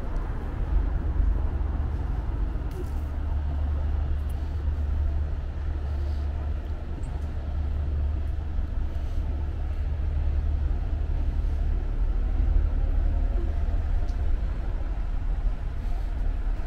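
Street traffic: a steady low rumble of passing cars and other vehicles on a busy road, with faint voices of passers-by.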